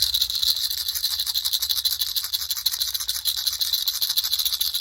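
Gemstones rattling inside a shaken tube: a loud, steady stream of rapid clicks and clatter, like a maraca.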